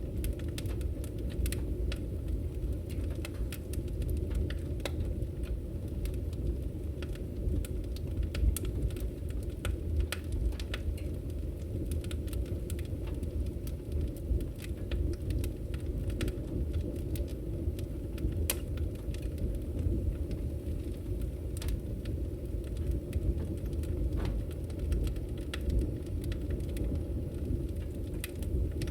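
Open wood fire crackling, with frequent short sharp pops and snaps over a steady low rumble.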